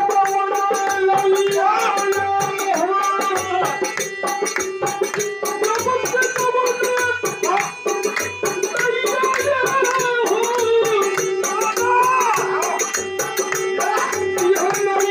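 Phagua, a Holi folk song, sung by a group of men to a harmonium's steady drone and a dholak's regular beat, with small hand cymbals chinking in a fast even rhythm.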